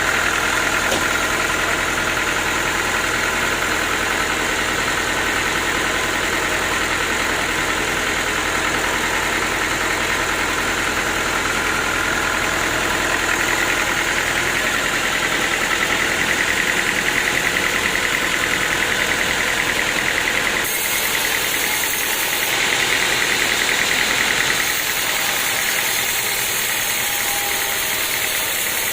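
Sawmill running: a steady, loud engine-driven machine noise. The sound changes abruptly about twenty seconds in.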